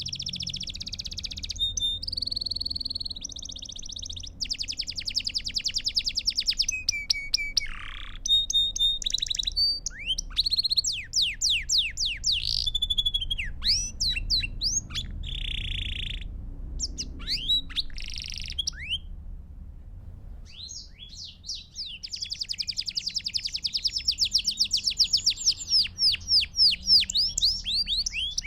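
Belgian canary singing a continuous song of fast, rapid trills, rolls and sweeping whistled notes, with brief pauses between phrases.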